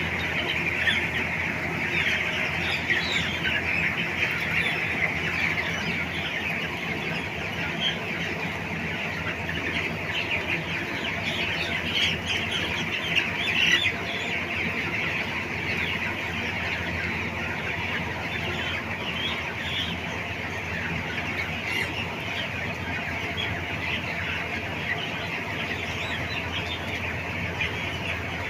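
A large flock of farmed chickens clucking and cheeping continuously, many birds calling over one another in a steady dense chatter.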